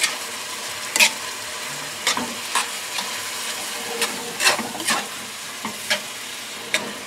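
Ground chicken and sauce sizzling in a steel wok as a metal spoon stirs them, with repeated scrapes and clinks of the spoon against the pan every half second to a second.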